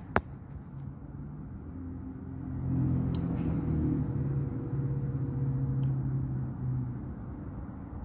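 Amana mini fridge compressor humming as it tries to start, with a few sharp clicks from the start relay or overload protector. The hum swells about three seconds in and stops about seven seconds in. This on-off clicking is the fault that keeps the fridge from staying on and cooling, which the owner puts down to a failing relay or overload protector.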